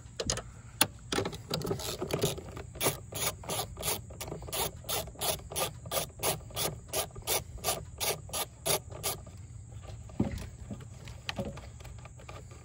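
Hand socket ratchet clicking as it is worked back and forth to loosen a nut, a steady run of about three clicks a second that stops a few seconds before the end.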